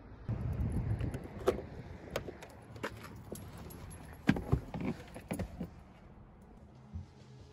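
Keys jangling and clicking inside a car, with a low rumble of handling at the start and several sharp metallic clicks after it.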